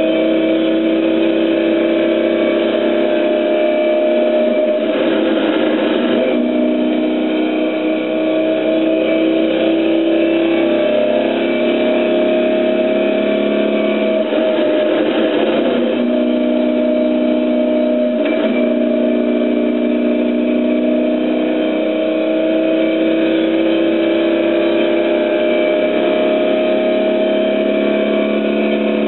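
Car engine heard from inside the cabin, pulling hard up a hillclimb with its pitch climbing slowly over several seconds, broken up briefly about three times along the way.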